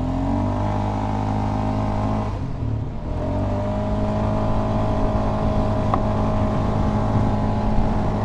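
Polaris Sportsman 570 ATV's single-cylinder engine pulling under throttle at trail speed, rising in pitch. The engine eases off briefly about two and a half seconds in, then pulls again and holds a steady pitch.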